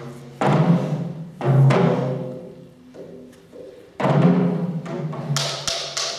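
Percussive music with deep, timpani-like drum strikes over sustained low notes: three heavy booming hits that ring out and fade, then a quick run of sharper, lighter hits near the end.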